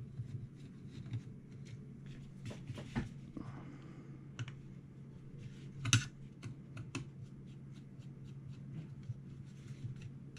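Small metallic clicks, taps and scrapes of a screwdriver working at the metal shell on a 3.5-inch hard drive, with a louder clack about six seconds in.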